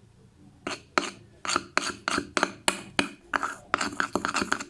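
A teaspoon scraping and stirring thick toothpaste slime around a bowl in quick repeated strokes, about three or four a second, starting about half a second in.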